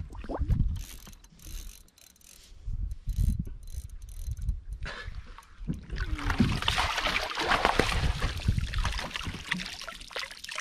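Low knocks and handling bumps against the boat, then from about six seconds in a rush of water splashing and dripping as a landing net holding a small fish is scooped and lifted out of the water.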